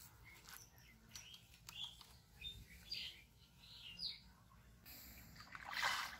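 Small birds chirping in short calls. Near the end, a hooked fish splashing on the water's surface as it is pulled in on the line, the loudest sound here.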